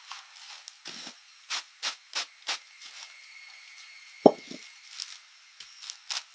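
A series of light, sharp taps and clicks, about five in the first two and a half seconds and a few more near the end, with one louder knock about four seconds in.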